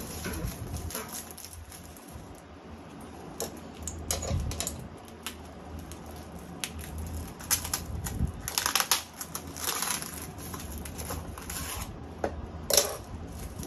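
Glossy black plastic film crinkling and rustling in irregular bursts as hands bunch it up off the roll. Near the end, scissors cut through it with a short sharp crunch, the loudest sound.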